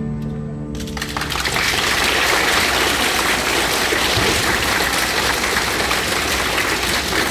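A children's violin ensemble with piano ends on a held chord that dies away about a second in, and the audience breaks into steady applause.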